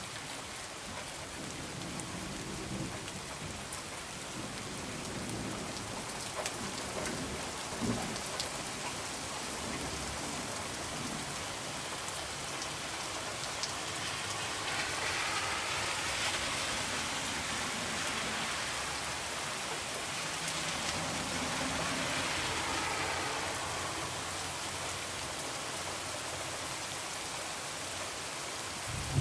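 Heavy rain falling steadily, with low rumbles of thunder swelling and fading twice.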